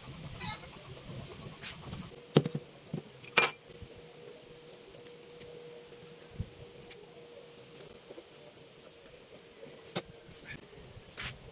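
Metal parts being handled: scattered clinks and knocks, the loudest two about two and a half and three and a half seconds in. A faint steady ringing tone follows the first knock.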